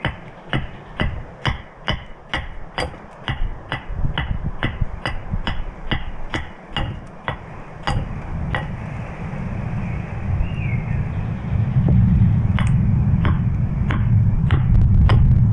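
Rhythmic knocking of a tool striking into the wood of a spoon blank, about two sharp knocks a second, thinning to a few scattered knocks after about eight seconds. A low rumble rises under the knocks and is loudest near the end.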